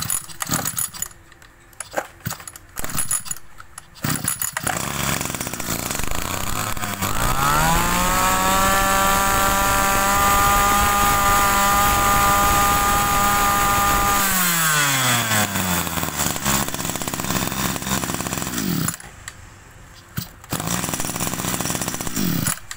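Kawasaki 24cc two-stroke brush-cutter engine pull-started: a few seconds of starter-cord pulls, then it catches and idles. It is revved up to a high, steady scream for about six seconds, drops back to idle and stops.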